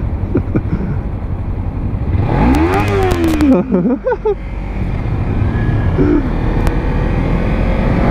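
Kawasaki Ninja 300's parallel-twin engine running on the move through its stock, baffled exhaust. About two seconds in it is revved up and back down, with a shorter blip right after.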